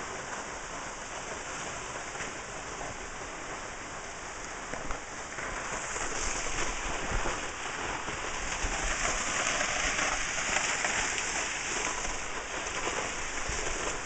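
Small hot spring waterfall splashing, a steady hiss of falling water that grows louder about five seconds in.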